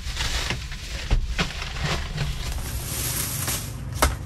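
Plastic takeout bags rustling and crinkling as they are dug through and handled, with a sharp click about four seconds in, over a low steady rumble.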